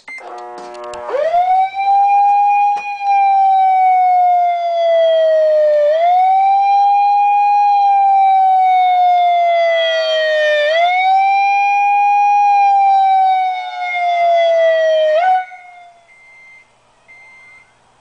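Homemade electronic siren, a megaphone horn fed a wailing tone over a baby-monitor link, sounding for about fifteen seconds. A short buzzy stutter as it switches on, then the pitch rises quickly and falls slowly, over and over about every four and a half seconds, until it cuts off suddenly. A few faint beeps follow.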